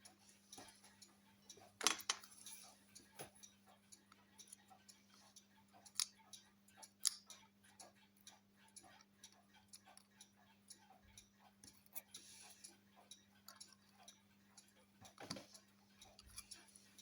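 Irregular small clicks and taps of metal parts and tools as a clockwork shaver's mechanism is handled and fitted together, a few sharper ticks among them, over a faint steady low hum.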